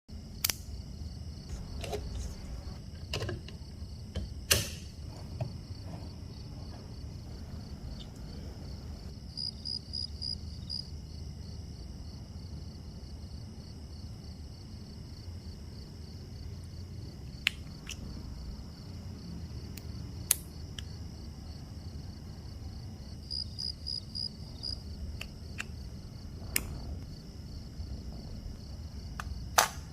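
Small metal watchmaker's tools clicking and tapping on a watch, in scattered sharp clicks over a steady faint hum and high whine.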